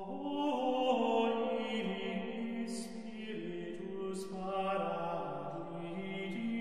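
Sung Latin chant in the style of medieval plainchant: a slow melody of long held notes moving by small steps, with an occasional sung 's' consonant.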